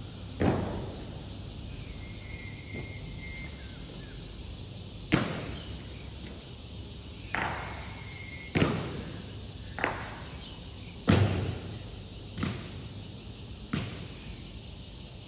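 Sharp knocks from an honor guard's rifle drill, eight in all at uneven intervals, each ringing briefly off the stone surroundings.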